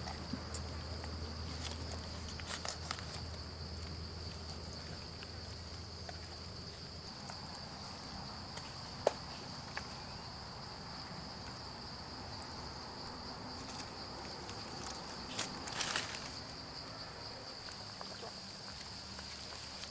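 Steady, high-pitched drone of forest insects, with a few scattered clicks and knocks, the sharpest about nine seconds in and a small cluster near the end.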